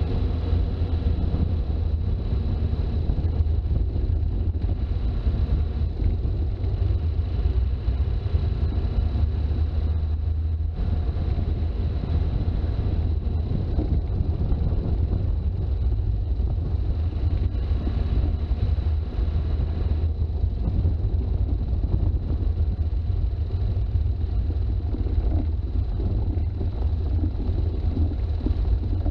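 Toyota HJ61 Land Cruiser's turbo-diesel straight-six running at a steady pace with a low rumble of engine and road noise and some wind buffeting, and a faint steady high whine throughout.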